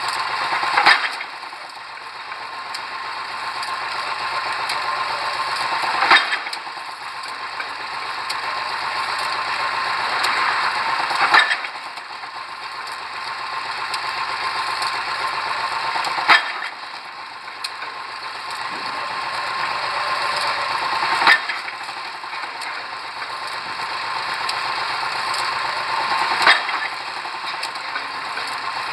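Pile driver's hammer striking a pile six times, about once every five seconds, with a mechanical clatter swelling up before each blow and dropping away after it.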